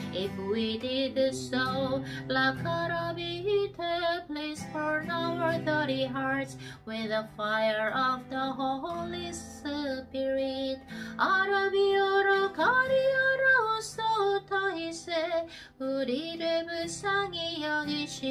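A woman singing a slow, free-flowing melody over a soft instrumental accompaniment, holding long notes in the middle.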